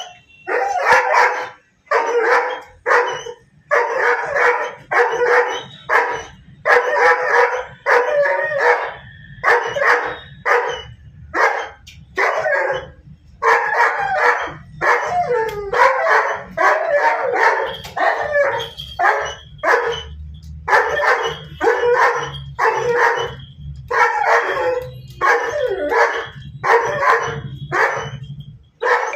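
German Shepherd barking aggressively in a long, steady run of loud barks, about one to two a second.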